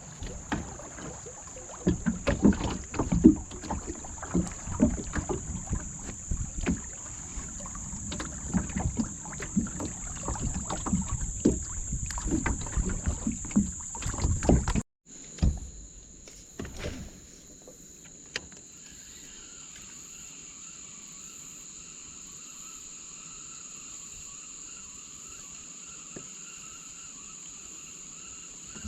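Irregular knocks and thumps of handling and gear against a kayak hull on the water. About halfway through the sound cuts suddenly to a quieter, steady insect chorus, with a steady high whine running throughout.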